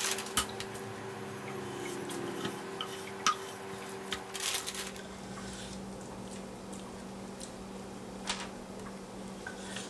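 Kitchen knife cutting marinated nilgai meat on a wooden cutting board, with scattered clicks and knocks of the blade and handling on the board. A steady low hum runs underneath.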